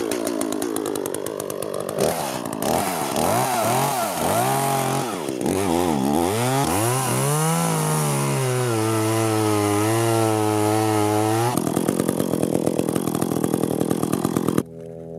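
ECHO two-stroke chainsaw cutting a hole in lake ice. Its revs rise and fall repeatedly, then hold at a steady pitch as the bar bites down through the ice. It turns rougher and pulsing, then cuts off suddenly near the end.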